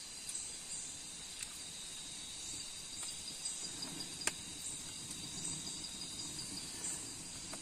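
Insect chorus chirping steadily, a high continuous trill with repeating pulsed calls, with a single sharp click about four seconds in.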